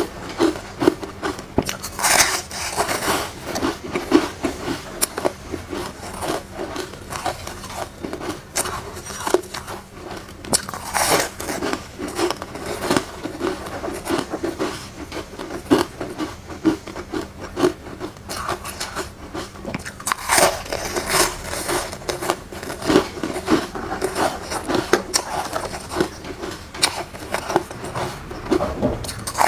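Chunks of flavoured soft foam ice being bitten and chewed: a steady run of soft, crackly crunches, with louder bites about two, eleven and twenty seconds in.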